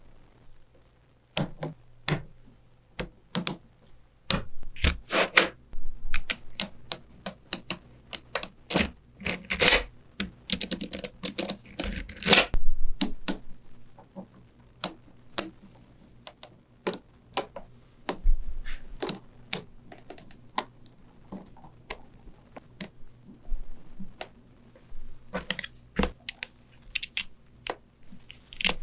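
Small magnetic balls clicking sharply as they snap together and are set in place by hand, in irregular runs. There is a denser clatter of many balls around the middle.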